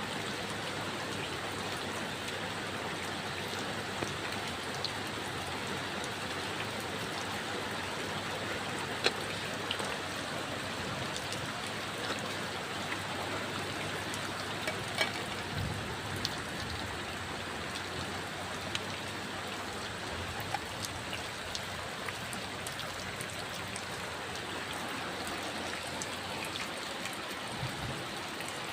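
Steady heavy rain, with scattered sharper drop or tap sounds on top, the loudest about nine seconds in.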